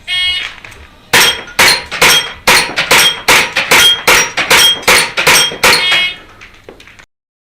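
A shot-timer beep, then after about a second a rapid string of about a dozen airsoft race-gun shots, just over two a second, each with the clang of a BB hitting a ringing steel plate. A fainter beep follows the last shot, then a few light clicks.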